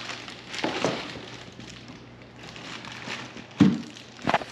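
Plastic bag crinkling as a bagged subwoofer is handled over its speaker enclosure, with two sharp knocks near the end, the first the louder.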